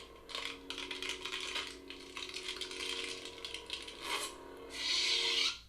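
Lightsaber sound effects from a Proffie-board neopixel saber's small speaker: a steady electronic blade hum with rapid crackling clicks over it, a louder hissing surge near the end, then the sound cuts off suddenly.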